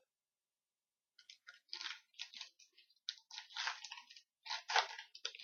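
A trading-card pack's wrapper crinkling and tearing as it is opened, in irregular crackly bursts starting about a second in.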